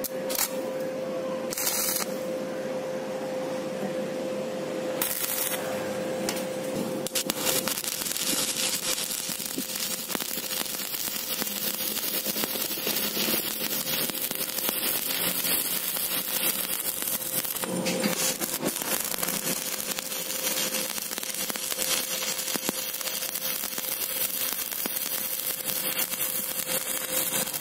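Stick (arc) welding with a 2.6 mm electrode on steel tube and plate: the arc's steady crackle, broken into short runs during the first several seconds as the rod is struck and restarted, then running without a break until it stops at the very end. A steady hum sits under it.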